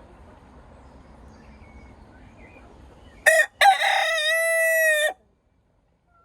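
A cockerel crowing once, about three seconds in. A short first note is followed by a long held note lasting about a second and a half, which ends abruptly.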